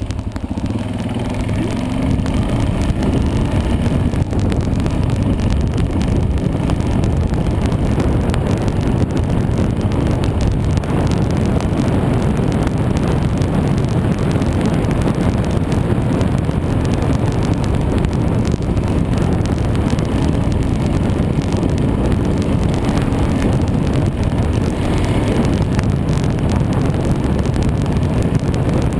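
Enduro dirt bike engine running under way on a dirt trail, rising in pitch as it picks up speed over the first few seconds, then holding a steady pace.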